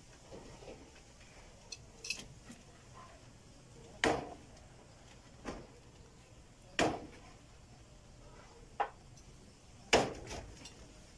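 Sharp clinks and knocks, five or six of them a second or two apart, the loudest near the end, over a quiet background.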